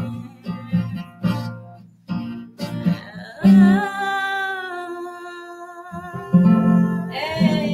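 A woman singing to her own strummed acoustic guitar. Strummed chords come first, then two long held notes over the guitar from about the middle on.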